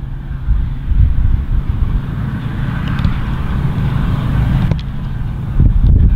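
Low, gusty rumble of wind buffeting the microphone, with a few faint clicks near the end.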